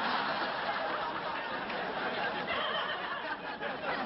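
Sitcom studio audience laughing steadily.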